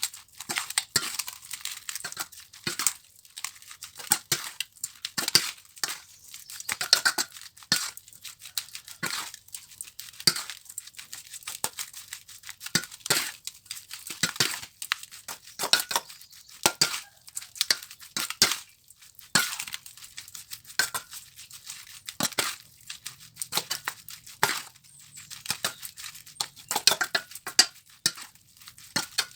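Irregular crackling and sharp clicks of food being handled or eaten close to the microphone, with occasional light clinks.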